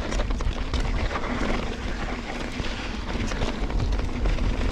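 Mountain bike ridden over a dirt trail, heard from a camera on the rider or bike: a steady wind rumble on the microphone, with frequent small rattles and knocks from the bike over rough ground.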